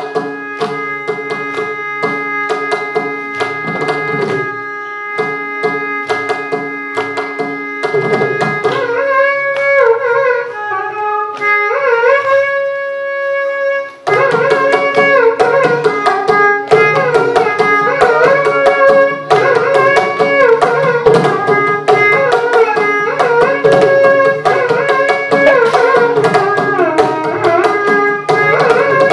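Carnatic violin playing in raga Saranga with mridangam accompaniment over a steady drone, the violin's melody sliding between notes. About nine seconds in, the drumming thins and the violin plays slower phrases, then both come back louder about halfway through.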